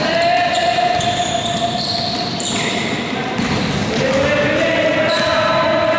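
A basketball being dribbled on a gym court, with players' voices calling out, echoing in a large hall.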